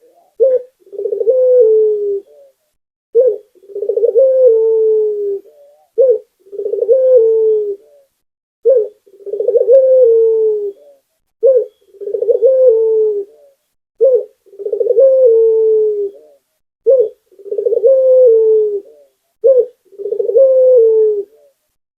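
Puter (Barbary dove) cooing in a steady repeating song: a brief note followed by a longer rolling coo that sags slightly in pitch, repeated about every two and a half seconds, eight times.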